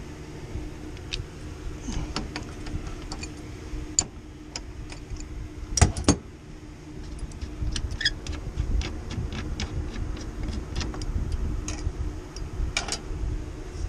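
Irregular metallic clicks, ticks and taps from hand tools and metal parts being handled while an evaporator coil is taken apart, with one louder knock about six seconds in, over a steady low hum.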